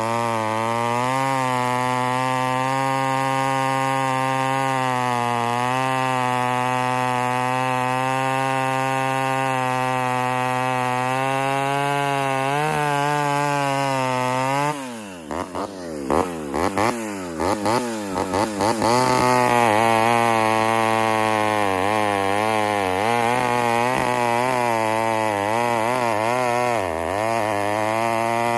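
Ported Homelite Super XL Auto two-stroke chainsaw running at high revs with a steady note. About halfway through the pitch drops abruptly and the sound stutters for a few seconds. It then picks up again, louder, with the revs rising and falling as the saw works in the wood.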